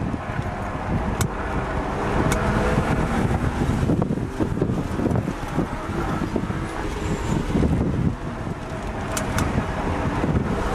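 BMW E36 M3's straight-six engine heard from inside the cabin, its revs rising and falling under hard driving, over wind and road noise. A few sharp clicks stand out, two of them close together near the end.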